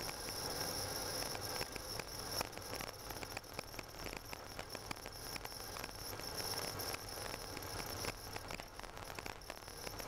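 A car driving on a snow-covered road, heard from inside the cabin: a steady hiss of tyre and road noise with many small crackles running through it.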